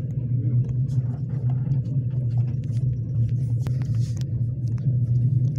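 Passenger train running along the track, heard from inside the carriage: a steady low rumble of wheels on rails with many short, irregular clicks and knocks over it.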